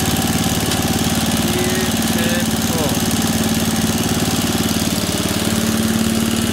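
Snow blower's small gasoline engine running steadily at a constant speed, freshly started after a drive repair and not yet put in gear.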